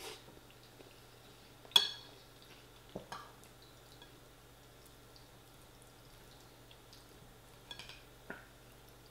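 Eating sounds: a few sharp clicks and taps of metal cutlery against a ceramic bowl, the loudest about two seconds in, with soft wet mouth sounds between them.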